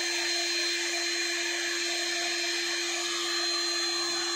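A 2000-watt hot air gun running on its high setting: the blower fan motor gives a steady hum with a thin high whine over a rush of air. The heater element has failed, so the gun blows air but gives no heat.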